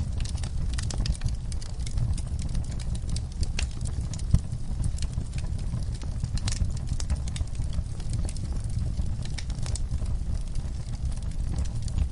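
Log fire in a fireplace crackling: irregular small pops and snaps over a low steady rumble of the flames, with one sharper pop about four seconds in.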